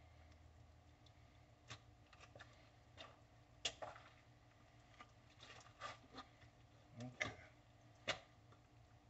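Hands handling raw pig chitterlings on a plastic table: faint, irregular clicks and small smacks, with a few sharper ones spread through.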